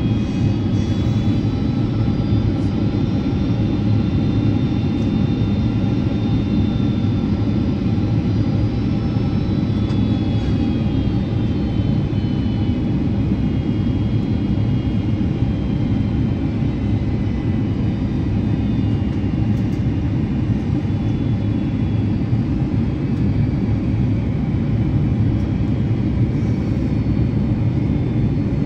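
Steady roar of a Boeing 767-400's General Electric CF6-80C2 turbofans and rushing air, heard from inside the cabin, with faint high whining tones that drift slowly up and down in pitch.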